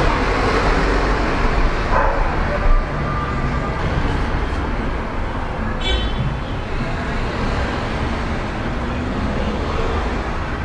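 Steady road-traffic noise from outdoors, a continuous rumble and hiss, with one short high-pitched chirp-like sound about six seconds in.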